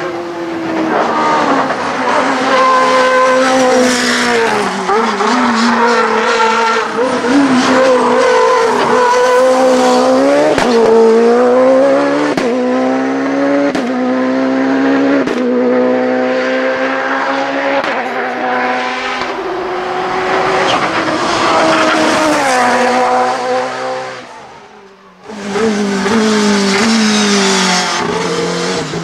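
LobArt/Helftec-Honda LA01 hillclimb racing prototype driven hard, its engine revving high with the pitch climbing and then dropping at each quick gear change. The sound fades about 24 seconds in, then comes back loud.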